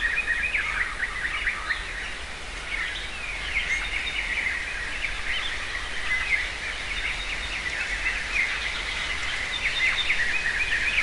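A woodland chorus of small birds chirping and trilling, many quick high calls overlapping without a break, over a faint steady low rumble.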